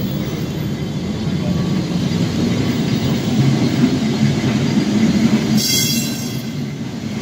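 Vintage wooden tram rolling along its rails, heard from inside the car: a steady rumble of wheels and running gear that swells in the middle, with a brief high-pitched screech near the end.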